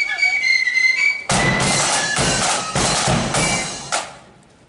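Marching flute band: flutes hold high notes, then snare and bass drums come in about a second in, beating about twice a second, and the playing dies away near the end.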